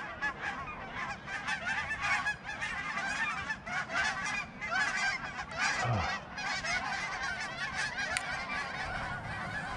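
A large flock of geese calling in flight overhead, a dense chorus of many overlapping honks.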